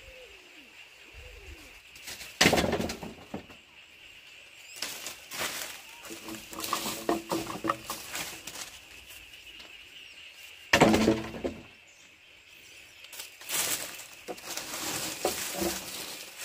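Long hollow bamboo poles being dropped and dragged: two loud clattering knocks with a short hollow ring, about two and a half and eleven seconds in, and between them rustling of dry palm-leaf thatch and lighter knocking of bamboo.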